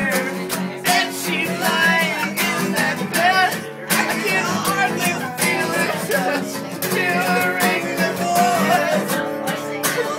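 Background music, a song with guitar.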